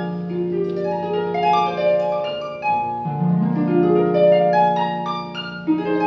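Solo pedal harp playing: plucked notes climb in rising arpeggios and ring on over a low bass note, with a fresh bass note and a new rising arpeggio about three seconds in.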